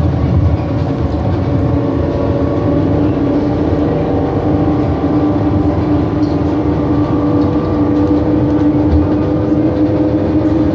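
2007 New Flyer E40LFR electric trolleybus under way: a steady pitched whine from its drive and axles over constant road rumble.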